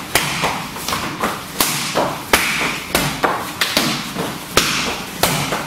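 Rapid series of punches and kicks landing on a free-standing BOB mannequin punching bag: sharp slaps and thuds, roughly two to three a second, unevenly spaced.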